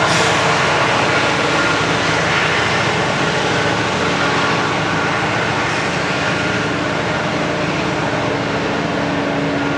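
Norfolk Southern unit grain train rolling past: a steady loud rumble of rolling freight cars and locomotive drone, easing off slightly as it goes.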